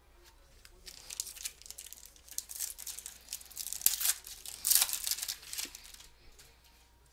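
Trading cards and their plastic packaging being handled: irregular rustling and crinkling that swells in the middle.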